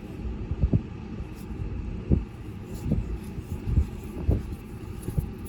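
Irregular low knocks and bumps, about six of them, with a low rumble beneath, as the toilet's water supply-line fitting under the tank is worked loose by hand.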